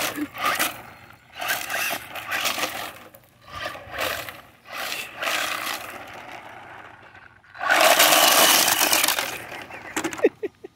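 Remote-control car spinning its wheels on gravel in a burnout, with gravel crunching and spraying in several short spurts and pauses. The longest and loudest spurt comes near the end.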